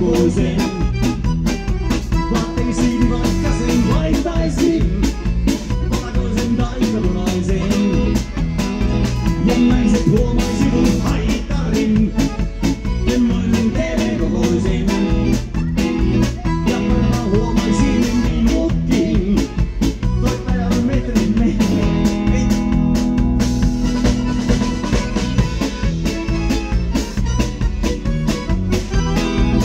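Live band playing an instrumental passage: red button accordion, electric guitar, bass guitar and drum kit, over a steady beat.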